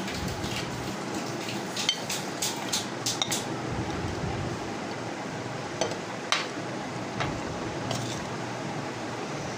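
A metal spoon clinking and scraping against a bowl while stirring boiled chickpeas and potatoes with spices. There is a cluster of clinks about two to three seconds in and a few single clinks later, over a steady background hiss.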